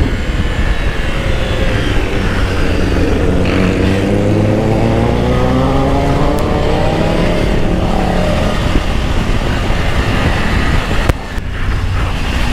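Triumph Tiger 900's three-cylinder engine at riding speed under heavy wind rush on the microphone. The engine note climbs over a few seconds and then falls away, and the sound drops briefly near the end.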